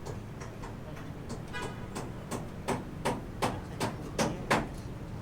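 Hammer blows: a steady run of sharp strikes, about three a second, that grow louder and stop near the end, with a few fainter strikes before them.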